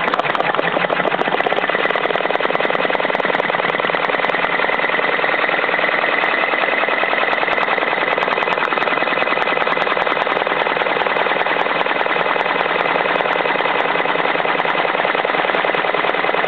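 Brother PR650e six-needle embroidery machine stitching a buckram-backed ball cap on its hat jig: a steady, rapid clatter of the needle bar punching through the cap.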